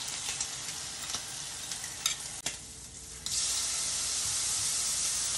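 Egg and bacon frying in a pan, sizzling, with a few sharp clicks of a fork against the glass jug as the egg is scraped in. About three seconds in the sizzle jumps to a louder, even hiss.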